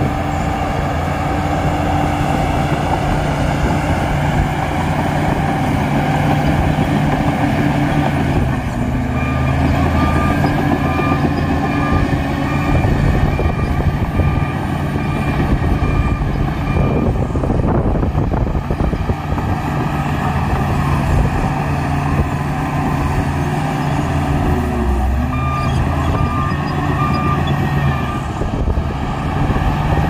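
Shantui crawler bulldozer's diesel engine running under load as it pushes mud, its pitch shifting a few times. A reversing alarm beeps steadily in two spells, one about a third of the way in and another near the end.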